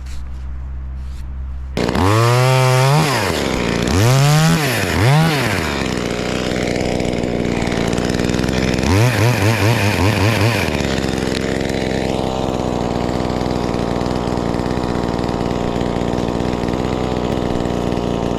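Cheap Chinese-made 2511T chainsaw, a small two-stroke, idling and then revved up and down three times about two seconds in. After that it is held at high revs for most of the rest, with a quick fluttering of the throttle about halfway through.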